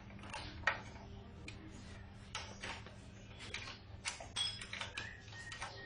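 Irregular light clicks and taps of metal tools and small parts being handled, over a faint steady hum.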